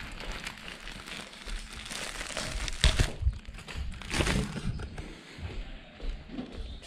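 Crinkly rustling and handling noise from a handheld camera carried about and brushing against fabric, with a couple of sharp clicks about three seconds in and a louder rustle around four seconds.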